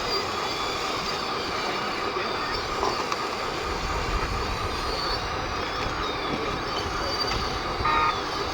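Steady mechanical din of radio-controlled model trucks and diggers at work, with faint rising and falling electric motor whines. A pulsed reversing beeper starts near the end.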